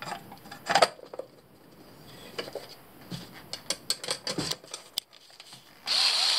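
Small metal clicks and taps as the ECU's metal case and its screws are handled and fitted back together. Near the end a small cordless screwdriver starts whirring.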